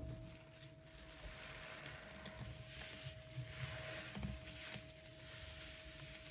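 Gloved hands pressing into thick soap foam and squeezing a sudsy natural sea sponge: soft wet squishing and crackling of foam that swells and fades with each squeeze.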